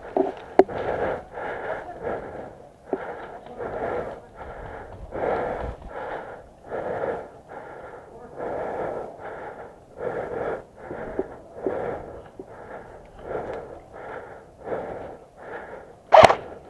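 Heavy, rasping breathing close to the microphone, a short breath about once a second. A loud, sharp sound breaks in near the end.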